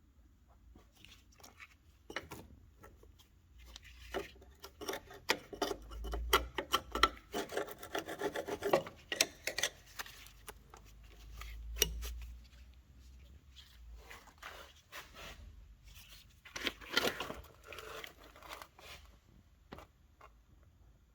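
Irregular hand rubbing and scraping strokes with a few sharp clicks, typical of hand work on car body filler such as sanding or scraping it on a panel.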